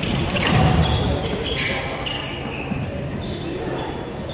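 Badminton rally in a sports hall: sharp racket strikes on the shuttlecock and thumping footsteps, with short high squeaks of shoes on the wooden court floor.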